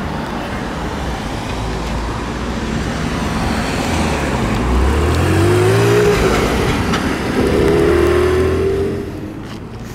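Cars driving past and accelerating, one after another, their engine notes rising in pitch. The sound is loudest about six seconds in and again about eight seconds in, as a Porsche 718 Cayman GT4 pulls away, then drops off near the end.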